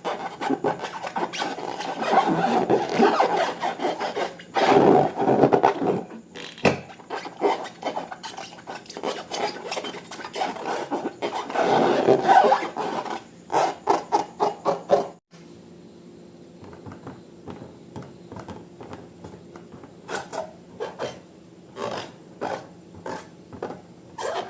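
Slime being handled and mixed, with wet rubbing and scraping sounds and many small sticky clicks and pops. About fifteen seconds in it cuts off suddenly, and after that the sound is quieter, with scattered clicks.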